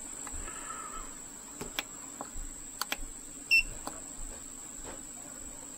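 BougeRV Flash300 portable power station being switched on at its buttons: a few light clicks and one short high beep about three and a half seconds in. Under them run a thin steady high-pitched whine and a faint low hum.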